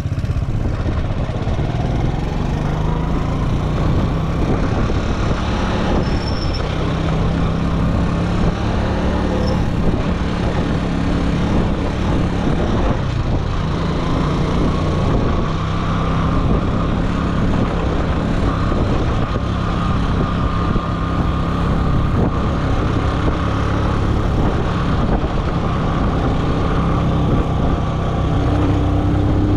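Motor vehicle engine running steadily while under way, with a continuous rush of road and wind noise.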